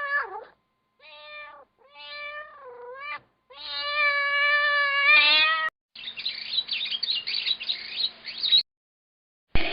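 Domestic cat meowing several times, short meows followed by a longer drawn-out one, then a stretch of high, chirpy calls over a hiss.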